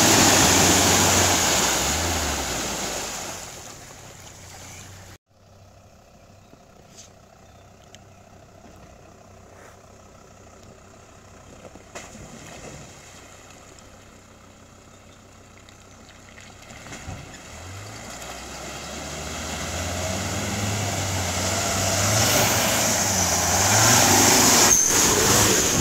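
SsangYong Rexton SUV driving off-road, its engine loud as it passes close at first and fading away. After a sudden cut about five seconds in, it is heard faint and distant, then builds again toward the end as the SUV comes close.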